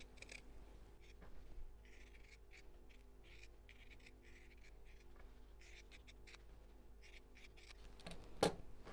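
Fabric scissors snipping through layered cotton in a run of short cuts, trimming out the inside of a stitched heart close to the seam. One louder knock comes near the end.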